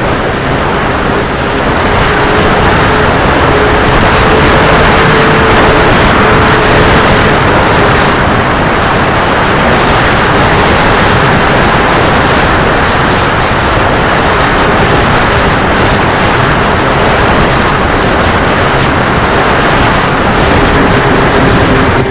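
Loud, steady wind rush over the microphone, with a steady motor hum underneath whose pitch wavers slightly.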